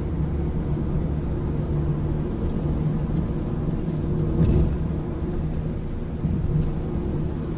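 Steady road and engine noise inside a car cruising at motorway speed, a low rumble of tyres on tarmac with a faint steady hum. About four and a half seconds in there is a brief louder bump.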